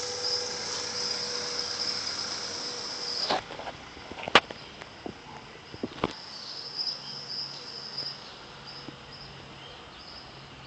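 High, steady insect chirring that breaks off about three seconds in and comes back in pulses a few seconds later. Two sharp clicks stand out in the gap, the first the loudest sound.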